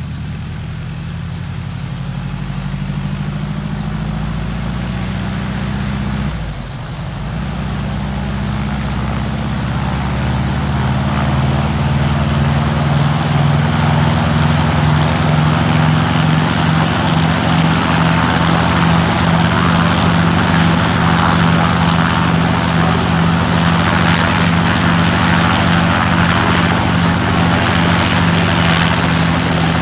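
Light helicopter running up on the ground, its engine and main rotor spinning up: the note climbs slightly and grows louder over the first dozen seconds or so, dips briefly about six seconds in, then settles into a steady beating drone.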